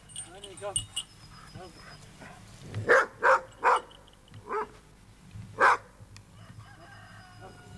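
Dog barking: three short barks in quick succession about three seconds in, then two more single barks over the next two seconds.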